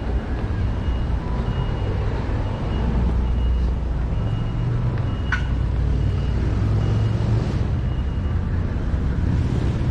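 Outdoor city street sound: a steady low rumble of traffic and wind, with a high electronic beep repeating about every two thirds of a second until near the end. A single sharp click about halfway through.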